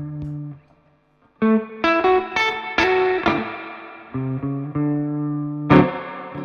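Ivison Dakota electric guitar with Sunbear Sunbird pickups, played through a Magnatone Twilighter amp. A chord rings out and stops, then after a short pause comes a quick run of picked single notes, then held low notes, and a strummed chord near the end.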